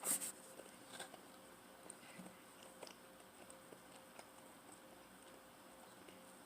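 Someone quietly chewing pizza, with a sharp click at the very start and then soft, scattered mouth clicks about once a second.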